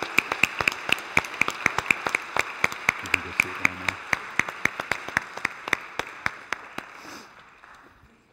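Congregation applauding in a church, with one close set of loud claps about four times a second standing out over the rest. The applause dies away near the end.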